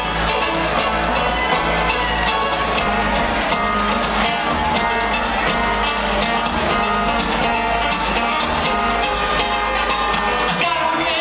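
A bluegrass string band playing live and amplified in a large hall: picked banjo, mandolin and acoustic guitar over upright bass, with a steady, quick rhythm.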